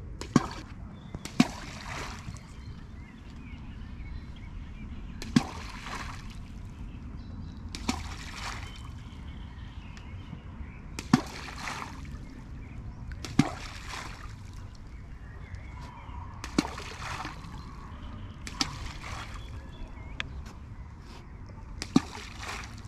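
Groundbait balls thrown one after another into a lake, each landing with a sharp plop and a short splash, about ten in all at irregular intervals of one to three seconds.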